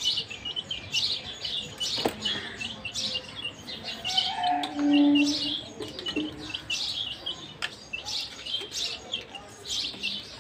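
Young chickens peeping constantly, many short high chirps overlapping and falling in pitch. A brief low steady tone about five seconds in is the loudest sound, and a sharp click comes about two seconds in.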